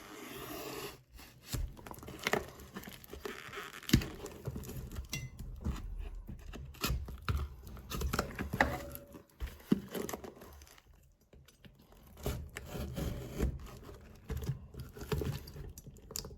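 A parcel's packaging being torn open and rummaged through by hand: tearing and crinkling with scrapes and scattered knocks, the sharpest knock about four seconds in.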